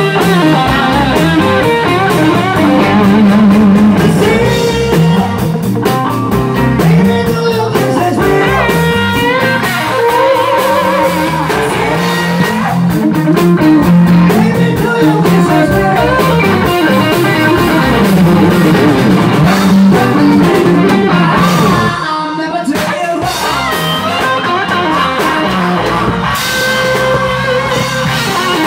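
A rock and roll band playing live: a man singing lead over electric guitars, including a Rickenbacker, bass and a drum kit. The band briefly drops in level about three quarters of the way through.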